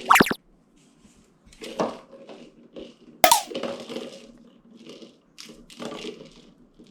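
A small treat container knocking and clinking on a hard surface: a sharp knock just after the start and another about three seconds in, with lighter clicks and rattles between.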